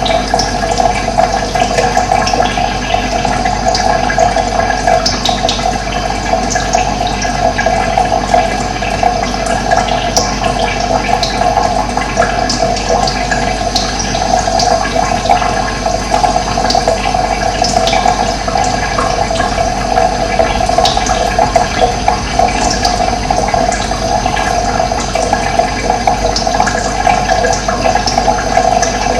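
Running water flowing steadily, with occasional short high bird chirps over it.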